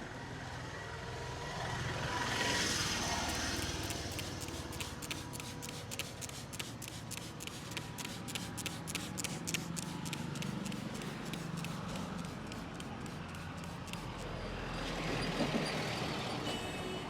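Hands working during a street head and body massage, making a fast run of crisp clicks, several a second. Passing street traffic swells up twice underneath.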